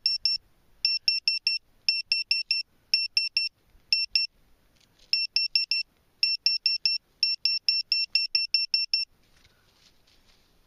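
Metal-detecting pinpointer probe beeping in quick runs of short, high beeps, about six a second, with brief gaps between runs, as it picks up a buried metal target on the side of its probe. The beeping stops about nine seconds in.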